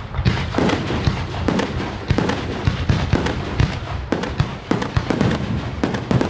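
Japanese aerial firework shells of up to No. 4 size fired in quick succession. Sharp launch thumps and bursting bangs overlap at about two or three a second with no pause.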